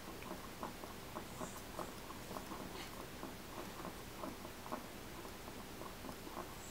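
Guinea pig with dental malocclusion chewing food: faint, small crunching clicks, about four a second.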